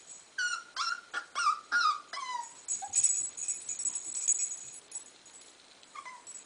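Young corgi puppy whimpering as it hesitates to climb down a stair step: a quick run of about six high, falling whines in the first couple of seconds, then one more near the end.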